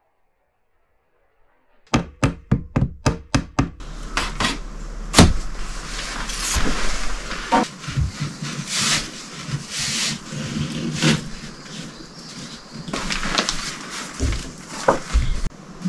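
About two seconds in, a quick, even run of about seven sharp knocks, then steady rustling of cloth with scattered knocks of wood as a curtain is handled and hung on a wooden curtain rod.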